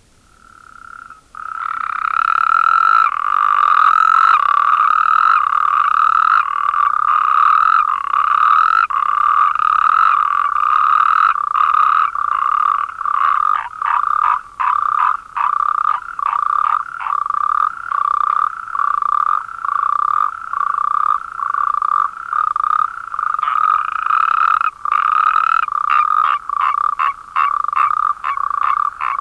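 Natterjack toads (Bufo calamita) calling: loud trills held on one steady pitch, long and overlapping at first, then broken by short gaps roughly once a second.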